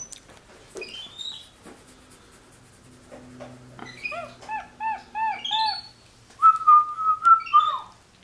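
Capuchin monkey giving high, whistle-like chirps: one short rising chirp, then a quick series of four arched peeps, then a longer wavering call that drops away at the end.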